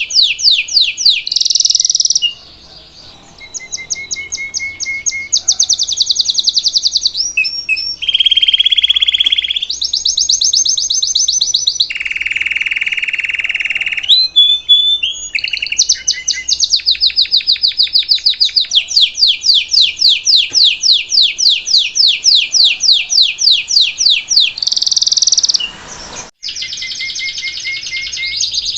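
Belgian salsa canary singing a continuous song of rapid trills. Each trill is a run of very fast repeated notes at one pitch, changing to a new trill every second or two, with two lower, rolling trills in the first half. It breaks off briefly near the end.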